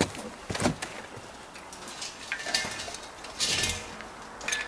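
Metallic clinks and knocks as a propane cylinder's valve and regulator fitting are handled at the base of a gas grill, with a short rustling burst about three and a half seconds in.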